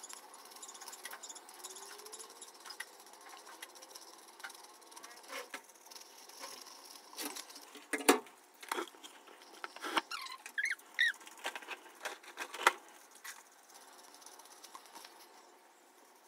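Handling and brushing of a paper mâché ball: small scratchy rubbing and tapping noises over a faint steady hiss, a few sharp louder clicks in the middle, and brief squeaks about two-thirds of the way through.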